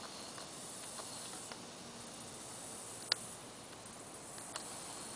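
Quiet outdoor ambience, a steady hiss, with a few faint clicks and one sharp tick about three seconds in.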